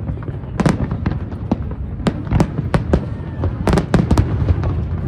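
Aerial fireworks shells bursting in a display: about a dozen sharp bangs, several in quick pairs and clusters, over a continuous low rumble of echoing reports.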